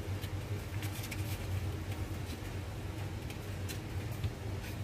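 Faint rustling and light taps of a paper baking cup as pieces of rolled bread dough are pressed into it, over a steady low hum.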